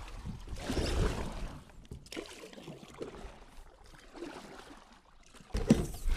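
Kayak paddle strokes: the blade dipping and swishing through river water, the loudest about a second in, softer ones after. A louder low rumble starts near the end.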